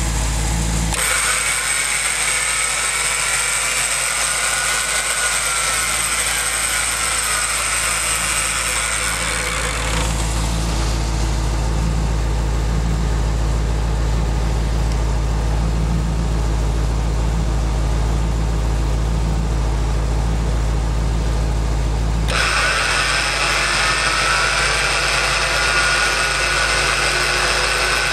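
Homebuilt winch driven by a converted aircraft starter motor, running with a high electric whine that rises and falls slightly in pitch as it winds in cable. The whine stops about ten seconds in, leaving a steady low hum with a faint rhythm, and starts again a few seconds before the end.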